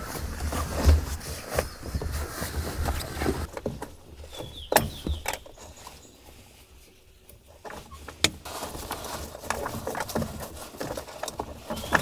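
Rustling and handling noises inside a car: bedding shuffled about, then an elastic cord being pulled and retied to a roof grab handle, with a few sharp clicks and knocks.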